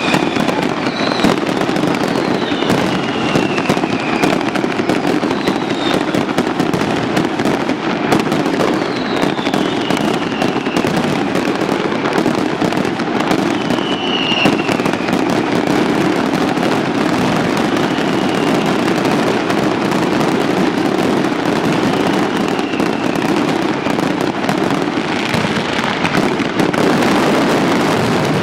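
Mascletà pyrotechnics: a dense, unbroken barrage of firecracker bangs, with whistling fireworks falling in pitch over it several times.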